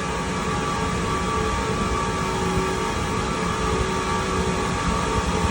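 Steady, unbroken whir of server and storage-array cooling fans and room air handling, with several constant tones riding on the noise.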